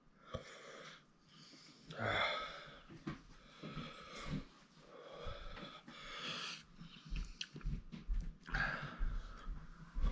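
A man breathing hard and wheezing through an open mouth, a few long, breathy gasps a couple of seconds apart, from the burning heat of a Carolina Reaper chilli.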